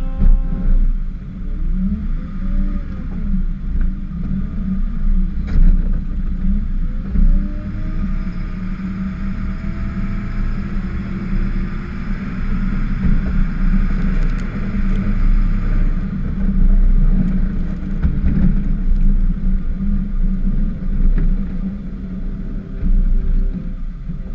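Ford F-550 plow truck's engine running steadily under load as its front snowplow blade pushes through snow, with a rushing scrape that swells for several seconds in the middle.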